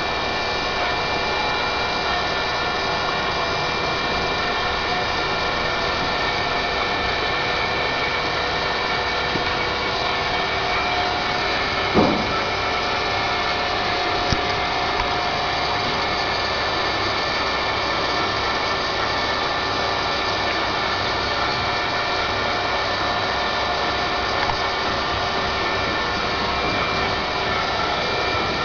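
A small motor running steadily, a constant whine of several pitched tones over a hiss. There is a single knock about twelve seconds in and a fainter click a couple of seconds later.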